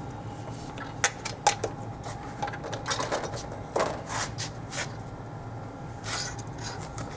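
Sharp metal clicks and knocks from tools and parts being handled as a press feed is unscrewed from its mounting bracket: two quick clicks about a second in, then scraping knocks in the middle, over a steady machine hum.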